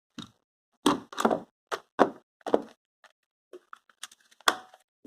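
Heavy-duty office stapler being handled and adjusted: a series of short, sharp clicks and knocks, the loudest about one and two seconds in and another near the end.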